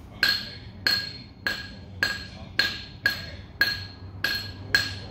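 A hammer striking steel, nine even blows about half a second apart, each leaving a clear metallic ring.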